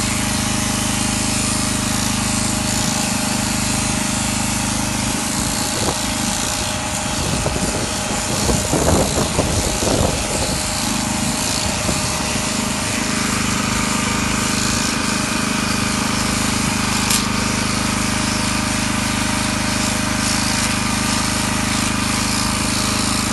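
Shearing handpiece on a drive shaft running with a steady mechanical buzz as it clips a llama's fleece, turning rougher and uneven about eight to eleven seconds in.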